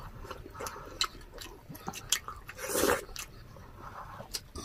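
Close-miked chewing and biting of crispy fried food, a run of small crackling clicks with one louder, longer chewing noise just past halfway.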